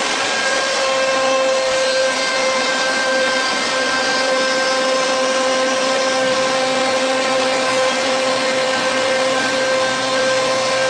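Fulltek PA-3713 CNC router's spindle running at speed while its cutter machines solid wood: a steady high whine with a dense cutting noise beneath it, unchanging throughout.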